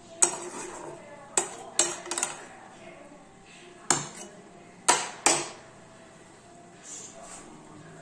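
Flat metal spatula knocking and clinking against a frying pan as potol pieces are nudged around in thick gravy. About seven sharp, irregular knocks over the first five seconds or so, then two fainter taps near the end.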